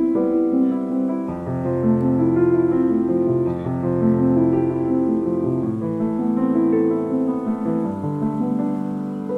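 Background music: a calm piano-led instrumental track with sustained keyboard chords.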